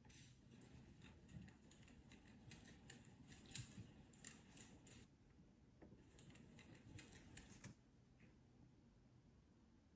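Near silence with faint, irregular soft clicks and rustles from two golden retrievers shifting and nuzzling against each other. The clicks thin out about eight seconds in.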